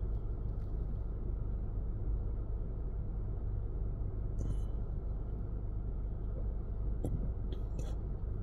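Steady low rumble of a car heard from inside the cabin, with a few faint clicks about halfway through and near the end.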